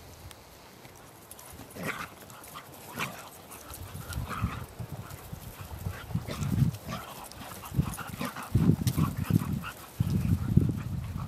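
A vizsla and a lurcher playing and chasing each other over grass: dog sounds with low rumbling bursts that grow louder over the last few seconds.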